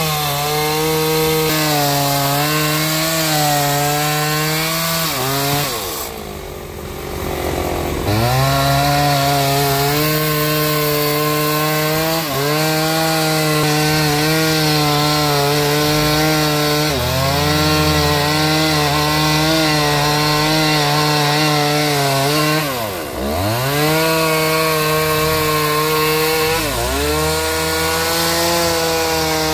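Engine-driven sawmill running steadily as it saws through a log, its engine pitch sagging and then picking back up about six seconds in and again about three quarters of the way through.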